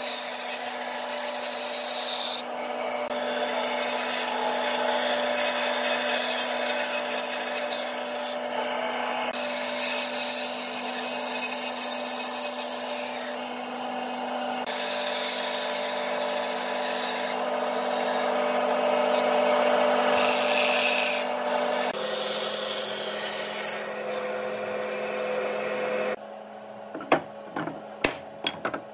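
Band saw running and cutting through a square pine post, a steady motor hum under the rasping cut. Near the end the saw goes quiet and wooden pieces knock on a table a few times.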